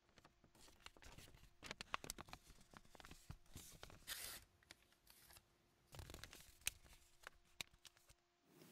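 Faint paper sounds of a letter being opened: small tearing and rustling crackles that come and go, over a faint steady hum.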